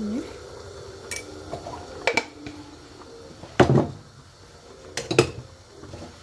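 Kitchen utensils and containers clinking and knocking as a seasoning is added to a frying pan: about half a dozen short sharp knocks, the loudest about three and a half seconds in.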